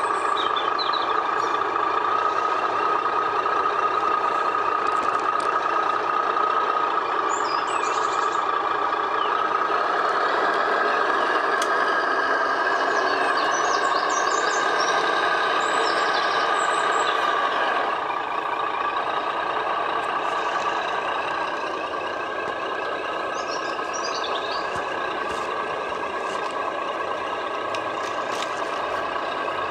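Simulated diesel truck engine sound from a radio-controlled Tamiya truck's sound unit, running steadily and a little quieter about two-thirds of the way through. Birds chirp briefly several times.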